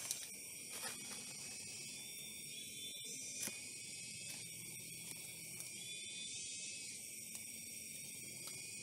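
Faint steady chirring of insects, with short high chirps every few seconds and a few soft clicks as hands work a coffee stem, the clearest about three and a half seconds in.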